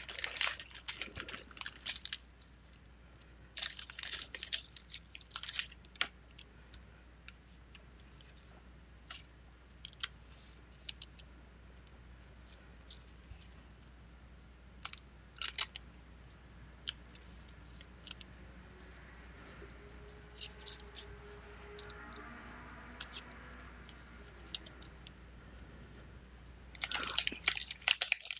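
Crinkling and rustling of trading-card packaging handled by hand, with scattered small clicks, in bursts near the start. Near the end a 1991 Fleer basketball pack wrapper is torn open in a louder run of crinkling.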